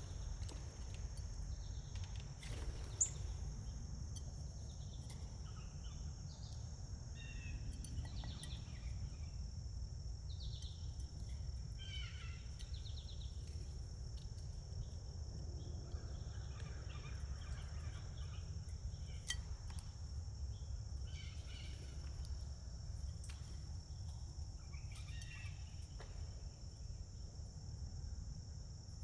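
Outdoor ambience: a steady high insect trill over a low rumble, with short bird chirps scattered through it.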